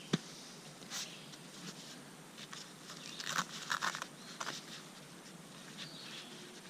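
Faint handling noises: a sharp click just after the start, then rustling and scraping about three to four and a half seconds in, from the packed tent bag and its strap being handled.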